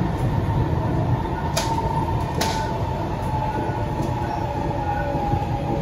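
Interior of an SMRT C151C metro car (Kawasaki & CRRC Sifang) running along the line: a steady rumble of the wheels and running gear with a faint hum, and two sharp clicks under a second apart near the middle.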